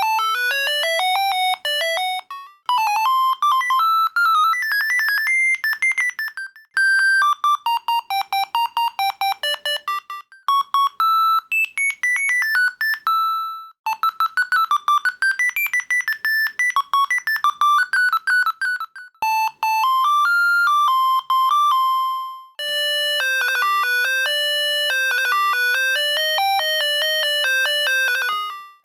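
Siemens A55 mobile phone ringtones playing one after another: about seven short electronic melodies, each a few seconds long, with brief breaks between them. The last one is fuller, with several notes sounding together.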